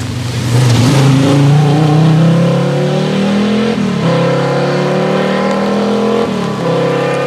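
1988 Audi 90 Quattro Group A rally car's naturally aspirated 2.3-litre straight-five accelerating hard, its revs climbing through the gears with a short drop in pitch at each of two upshifts, about four and six seconds in.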